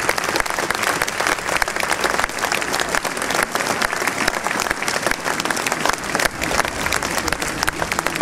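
Large crowd applauding steadily, a dense patter of many hands clapping at once.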